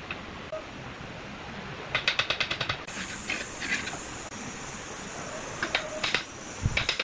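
Brick trowel tapping in quick runs of light, sharp taps, about ten a second, as bricks are bedded and mortar is worked; shorter clusters of taps follow. A steady high hiss comes in about three seconds in.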